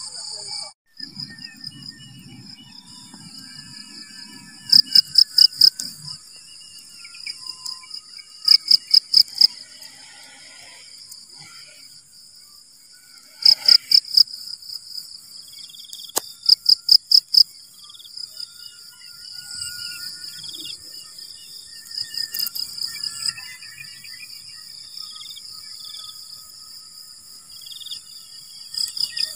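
Insects trilling steadily at a high pitch, with four loud series of rapid chirps, each about a second long.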